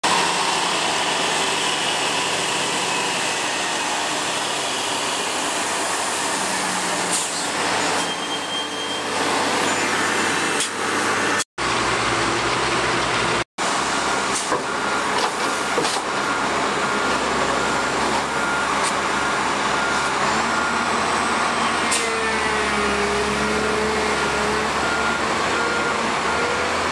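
Heavy diesel road-resurfacing machinery, an asphalt distributor truck and a chip spreader fed by a dump truck, running loudly and steadily. From about two-thirds of the way in, a backup alarm beeps evenly, about twice a second.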